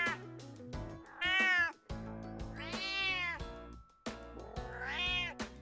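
Domestic cat meowing three times, each meow rising and then falling in pitch, over background music.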